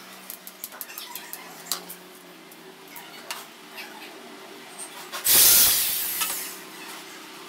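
Small screws clicking and ticking as they are handled on a wooden board, then about five seconds in a corded electric drill runs in one short loud burst and winds down.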